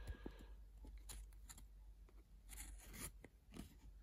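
Faint handling sounds: a few light clicks and soft scrapes as a small steel collet holder and its knurled conical adapter are pulled apart in the fingers, with a brief rustle of a plastic bag at the start.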